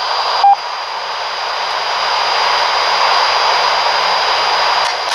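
Steady FM radio hiss with a thin high whine in it, from a two-way radio relaying through an Alinco DR635 set to crossband repeat. One short beep comes about half a second in, and the hiss cuts off suddenly at the end as the squelch closes.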